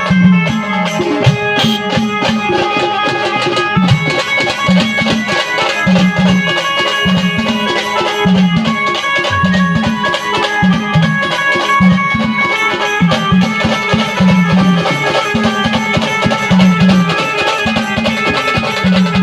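An Indian band playing a folk tune: held melody notes over dense, fast drumming with a steady low drum beat.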